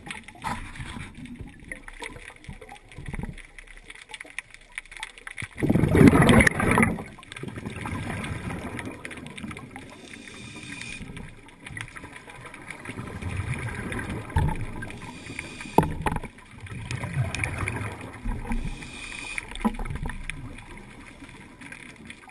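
Scuba diver's breathing heard underwater through a camera housing: exhaled bubbles rushing out in irregular surges, the loudest about six seconds in, with a couple of sharp knocks later on.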